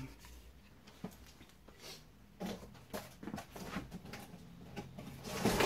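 Cardboard packing being pulled out of a cardboard box: a run of light scrapes, knocks and rustles starting about two seconds in.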